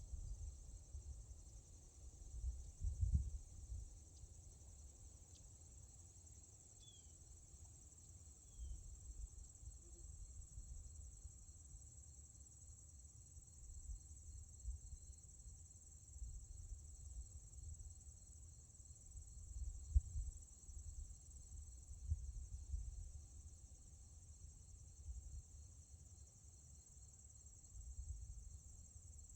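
Steady high-pitched buzz of an insect chorus, with a low rumble that comes and goes underneath.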